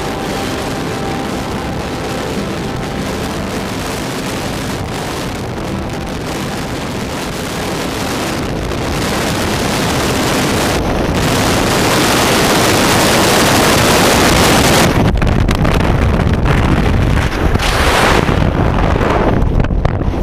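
Freefall wind rushing over the camera microphone during a tandem skydive: a steady roar of air that grows louder about halfway through and stays loud.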